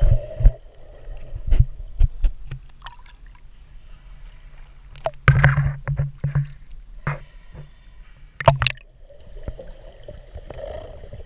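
Seawater sloshing and gurgling around an action camera at the surface, part of the time underwater, with sharp knocks and splashes against it. The loudest splashes come about five seconds in and again near eight and a half seconds.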